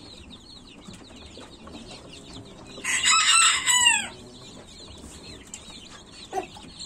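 A brooder full of newly hatched chicks peeping constantly, many high falling chirps overlapping. About three seconds in, a louder burst of high, falling squeaks lasts about a second.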